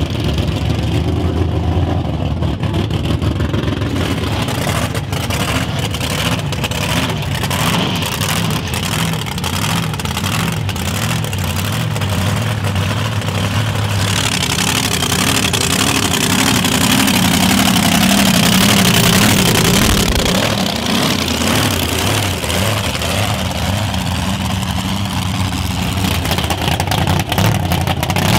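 Mega truck engine running hard, with the note rising and growing louder about two-thirds of the way through. A rapid string of sharp cracks comes in the first half.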